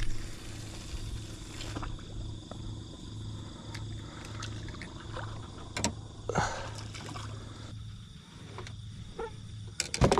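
Steady low hum of a running motor under a constant high-pitched drone. A burst of hiss comes in the first two seconds, and scattered clicks and knocks follow, a sharp cluster of them near the end.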